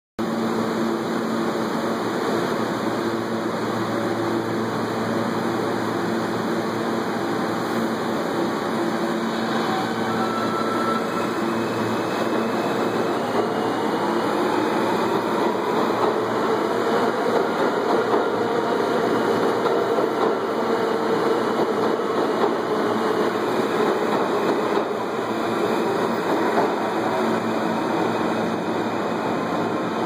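R160 subway train running along the express track over newly laid rail: steady wheel-on-rail noise with a tone that rises and then falls in pitch around the middle as the cars pass. The sound of the new rail is fading as the rail wears in.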